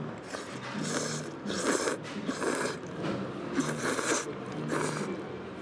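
A person slurping thick ramen noodles off chopsticks: about five short slurps in a row.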